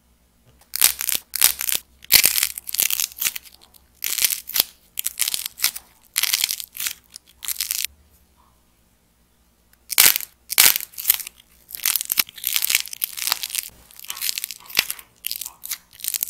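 Dried white clay dice with a painted shell being squeezed and crushed by hand: the hard coating cracks and the dry clay crunches and crumbles in quick crackling bursts. The bursts come in two long spells with a pause of about two seconds between them.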